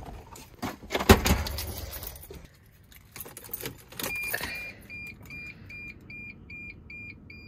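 Keys jangling and handling clatter in the driver's seat of a Dodge van, with a knock about a second in. About four seconds in, the ignition is switched on and the dashboard warning chime starts beeping steadily, about three short beeps a second, ahead of the engine being started.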